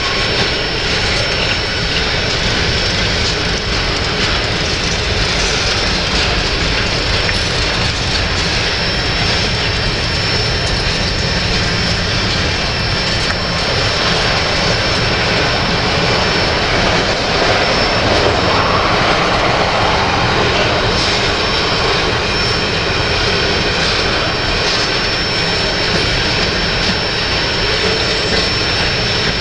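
Freight train of covered hopper cars rolling past close by: the steady roar of steel wheels on the rails, with faint clicks and a thin high steady tone on top.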